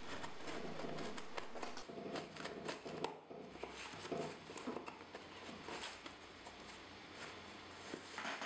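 Faint, irregular rustling and small crackles of packaging being handled as a parcel is opened.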